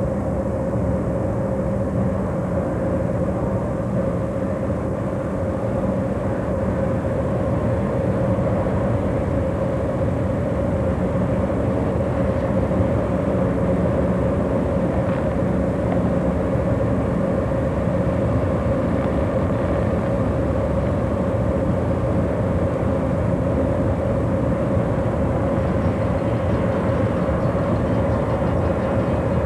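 Amtrak passenger train powered by two EMD F40PH diesel locomotives, a steady, unbroken drone of engines and rolling cars with a constant mid-pitched hum through it.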